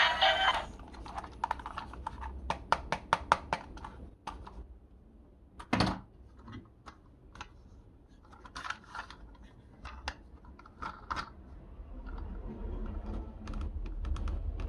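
Light clicks and taps. There is a quick run of about seven around three seconds in and one louder knock about six seconds in, with scattered clicks after. Music cuts off just after the start.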